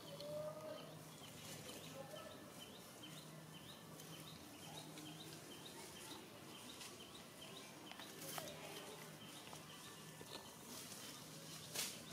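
Faint outdoor ambience with a bird chirping over and over in quick repeated high notes. A few short sharp clicks or rustles stand out, the loudest near the end.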